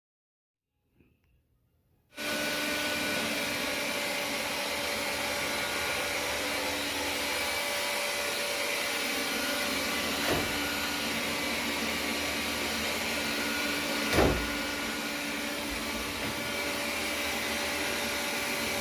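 Robot vacuum cleaner running on a shag rug: its motor and brushes start abruptly about two seconds in and keep up a steady whir with a few held tones. Two short knocks come partway through, the second louder.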